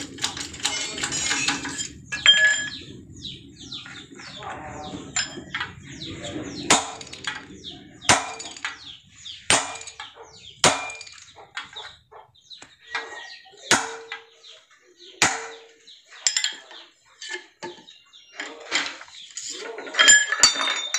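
Irregular sharp metallic knocks and clinks, some ringing briefly, from tools striking and handling the steel parts of a car ball joint as it is pressed and assembled. A low, even noise runs under the first several seconds.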